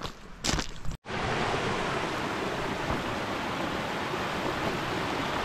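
Brief crunching footsteps on a stony path, then, after a sudden cut about a second in, the steady rush of a small mountain stream running over boulders.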